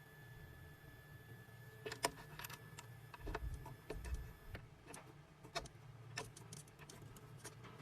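Faint scattered clicks and taps around a key cutting machine, over a low hum with a thin steady tone that stops about halfway through.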